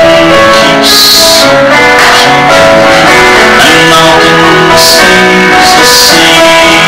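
Background music: a guitar-led instrumental tune with plucked notes.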